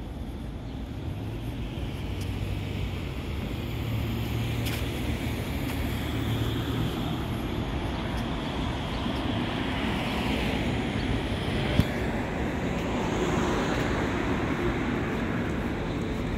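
City street traffic: a steady wash of vehicles running along a busy avenue, with a low engine hum in the first half and a passing vehicle swelling louder and fading a little past the middle. A single short, sharp click about twelve seconds in.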